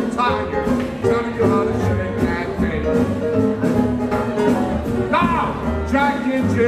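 Upbeat 1920s-style jazz music with a steady swing beat. It is an instrumental passage with no singing, and a bending instrument phrase comes about five seconds in.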